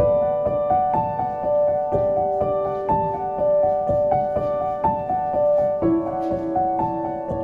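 Soft background piano music, a gentle melody of sustained notes changing about every half second.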